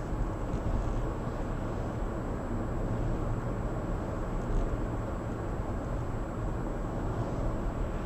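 Steady road and tyre noise inside a moving car, with a couple of faint swishes as oncoming vehicles pass.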